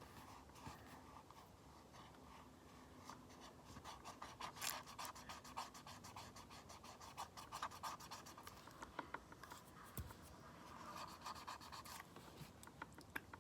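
Faint scratching, rubbing and light clicks of a makeup palette's case being handled close by, as at a covered name on it.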